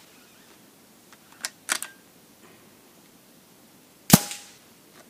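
Weihrauch HW100 pre-charged air rifle: mechanical clicks about a second and a half in as it is cocked and loaded, then a single sharp shot just after four seconds.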